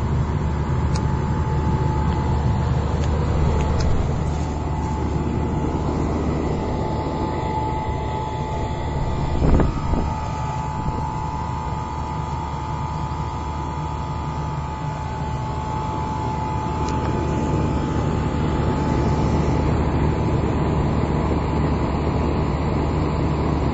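A 1964 Trane 2-ton central air conditioner's outdoor unit running: a steady hum from the compressor and condenser fan, with a steady high tone over it. Its compressor is one the owner takes to be a reciprocating type. A single brief knock comes about nine and a half seconds in.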